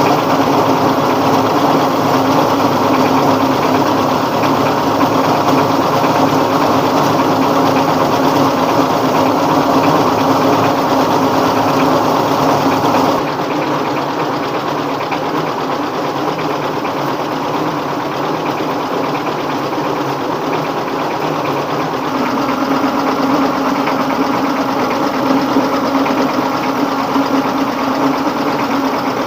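A rice mill driven by a 24 hp dompeng diesel engine, running steadily under load with a loud, continuous machine noise. The sound changes abruptly about 13 seconds in and again about 22 seconds in.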